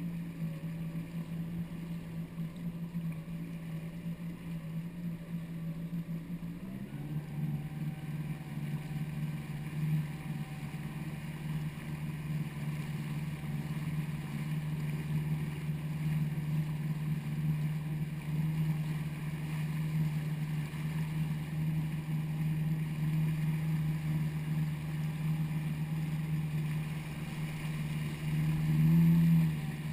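Jet ski engine running steadily at speed, heard from on board. The drone rises a little in pitch and level about seven seconds in, and surges louder for a moment near the end.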